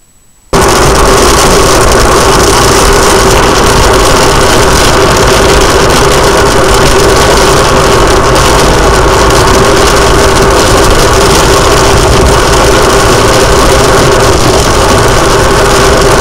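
Loud, steady noise inside a car driving through a thunderstorm: rain hitting the windshield, mixed with engine and road noise. It starts abruptly about half a second in.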